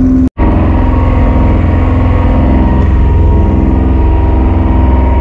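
Fishing boat's engine running steadily, a loud low drone with a faint whine above it, heard close on deck. The sound cuts out completely for an instant about a third of a second in.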